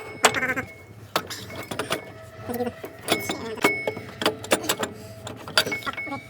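Metal parts and hand tools clinking and knocking: an irregular run of sharp metallic taps, some ringing briefly.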